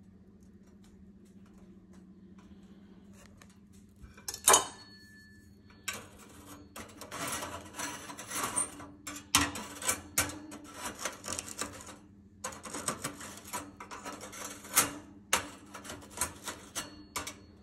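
Metal utensil scraping and clinking against the metal slots and wire guards of a Dualit toaster while digging out charred, burnt toast. A loud knock about four seconds in, then a dense run of rapid scrapes and clinks from about six seconds on.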